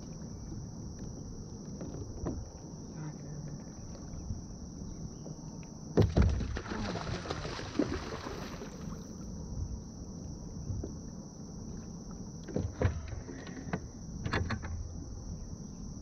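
Hooked snakehead thrashing at the surface beside a kayak: a loud sudden splash about six seconds in, with churning water for a few seconds after. Scattered knocks follow near the end.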